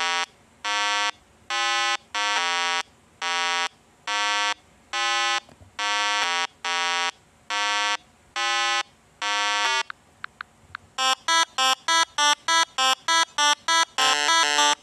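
Buzzy electronic tune: steady synthesized notes of changing pitch, about one a second. From about eleven seconds in it breaks into a quicker run of short beeps, about three a second.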